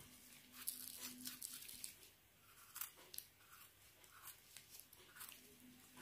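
Faint knife work on porcini mushrooms: a scatter of small crunches, clicks and scrapes as the mushrooms are cut and trimmed.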